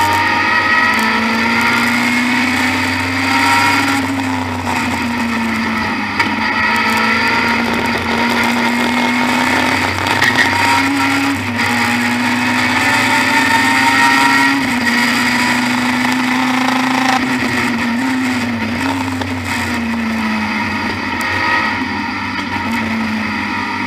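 Cockpit sound of a BMW E30 M3 Group A touring car at racing speed. Its four-cylinder engine runs hard, the note climbing through each gear and dropping back at the shifts and under braking, over a steady rushing noise.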